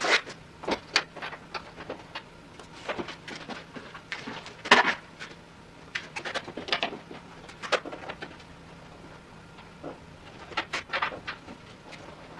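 Scattered, irregular clicks and clanks of hand tools and metal parts being handled in a pickup truck's engine bay, the loudest about five seconds in, over a faint steady low hum.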